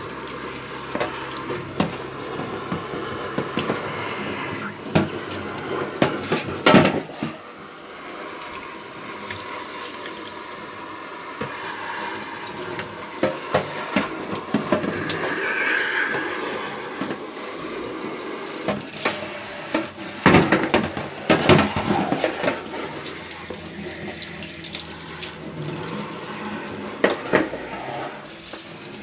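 Water running from a tap into a sink, with scattered knocks and clatter of things being handled in it, loudest about seven seconds in and again around twenty seconds in.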